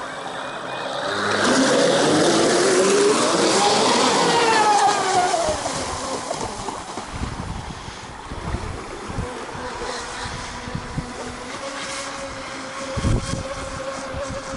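Motor of a radio-controlled catamaran boat whining as it speeds up, its pitch climbing over about three seconds and then dropping as it eases off. After that a fainter steady whine carries on, with wind buffeting the microphone.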